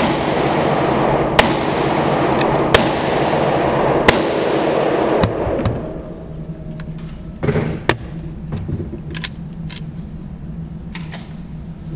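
Handgun shots at an indoor range, about five of them roughly a second and a half apart, over a steady loud rush. After that it goes quieter, with one short burst of noise and a few light clicks.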